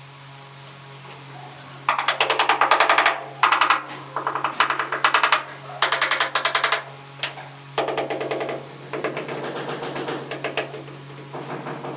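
Mallet tapping rapidly on a ceramic wall tile to bed it into the adhesive, in several short bursts of quick taps, over a steady low hum.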